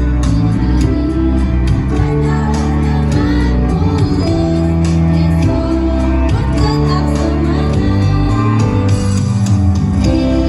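School choir performing a song: sung voices over sustained instrumental accompaniment.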